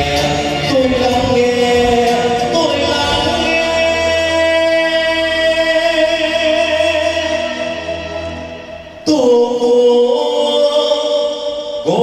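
A group of men and women singing a song together through handheld microphones. A long held note fades away, and the singing comes back in sharply about nine seconds in.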